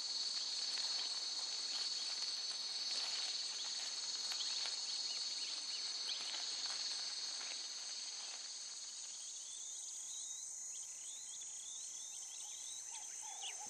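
Steady, high-pitched insect chorus of bush crickets, with scattered faint ticks. Near the end a run of quick, faint falling chirps joins in.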